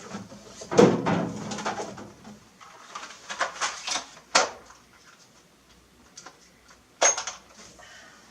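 Hand tools being handled as a screwdriver is fetched: a clatter about a second in, a run of sharp clicks and knocks a couple of seconds later, and one sharp click near the end.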